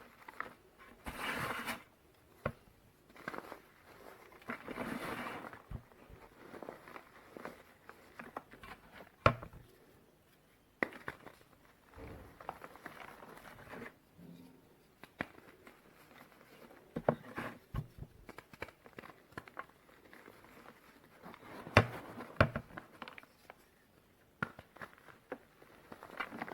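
Reformed gym chalk being crushed and crumbled: soft, powdery crunching in irregular bursts, with sharp snaps of breaking pieces, the loudest about nine and twenty-two seconds in.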